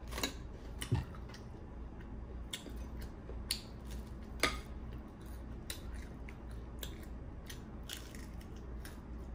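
A person biting and chewing crisp homemade fried flatbread, making short crunching clicks every second or so, the sharpest about halfway through, over a low steady hum.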